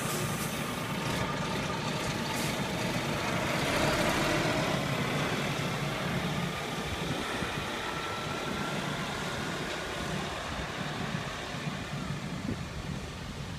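Articulated lorry's diesel engine running as it drives past pulling a flatbed trailer, loudest about four seconds in and then slowly fading as it moves away.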